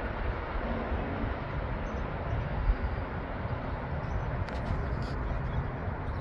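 Steady low rumble of a Norfolk Southern freight train running away into the distance as its last cars round a curve.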